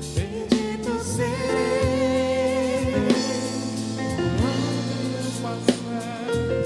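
Gospel song with singing voices over a band with drums, in a steady beat.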